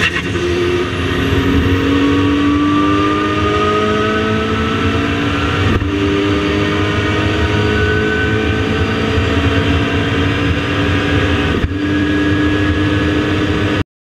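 KTM X-Bow GT4's turbocharged Audi 2.0-litre four-cylinder engine at full throttle, heard from inside the cockpit, its pitch climbing steadily. There are two brief breaks about six seconds apart. The sound cuts off abruptly near the end.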